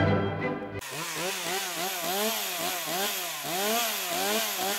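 Petrol chainsaw engine revving, its pitch rising and falling over and over, cutting in about a second in and stopping abruptly at the end.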